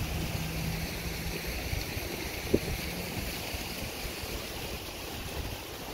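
Steady rushing background noise with a faint low hum, and one short click about two and a half seconds in.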